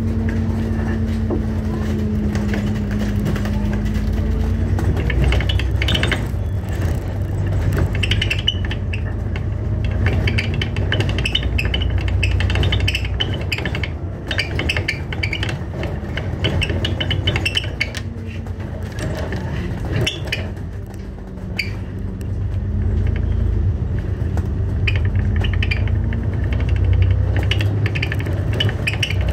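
Alexander Dennis Enviro400 MMC double-decker bus heard from inside while it is driving: a low engine and road rumble with a thin whine that drifts slowly down and up in pitch, and the bus's interior fittings rattling and clicking throughout.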